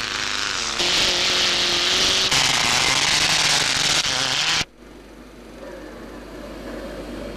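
Lancia Delta HF Integrale rally car's turbocharged four-cylinder engine running as the car ploughs through a water ford, with heavy splashing and spray over it. The sound cuts off suddenly about four and a half seconds in, leaving a quiet steady room hum.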